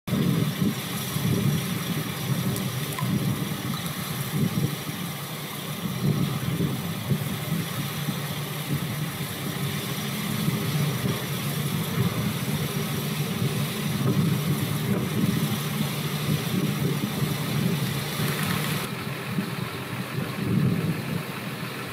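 Heavy engine idling steadily, a continuous low hum with hiss above it. The higher hiss drops away near the end.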